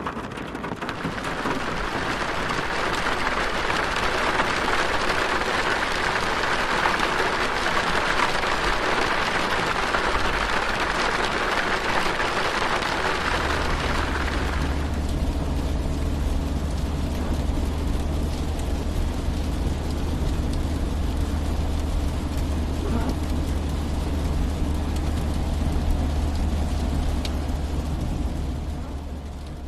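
Heavy rain on a car's roof and windows, heard from inside the cabin as a dense steady hiss. About 13 seconds in, a low steady car rumble comes in and the rain soon turns lighter; the sound fades near the end.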